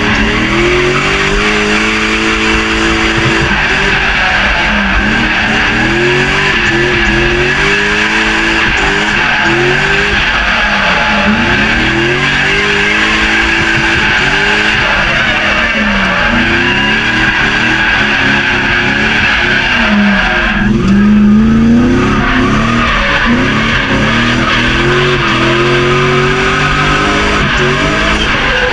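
The BMW E36's swapped-in M60B40 4.0-litre V8 is revved up and down over and over, heard from inside the cabin. Tyres squeal steadily as the car drifts, and the squeal breaks off briefly about two-thirds of the way through.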